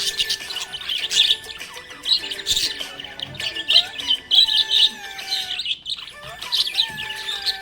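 Budgerigar chirping and warbling in quick, continuous chatter, with a brief pause about six seconds in.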